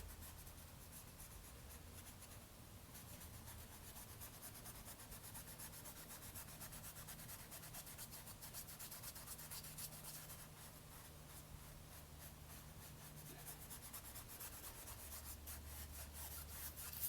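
Faint scratchy rubbing of a paintbrush working acrylic paint onto canvas in many quick short strokes.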